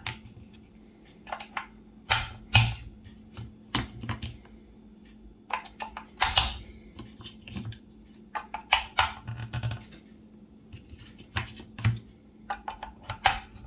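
Rechargeable batteries being pushed one after another into the spring-loaded slots of a SkyRC NC2500 Pro battery charger: a series of irregular plastic clicks and clatters.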